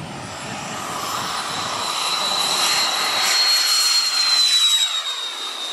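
Radio-controlled model jet's engine whining as the model runs down the runway on its take-off roll and passes by. The high whine grows steadily louder, peaks about four seconds in, then drops a little in pitch as it goes past.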